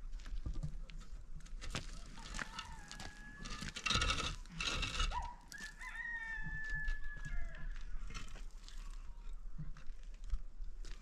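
A rooster crowing twice: a call about two seconds in and a longer one starting about five seconds in. There are scattered light knocks, and a brief loud scraping noise about four seconds in.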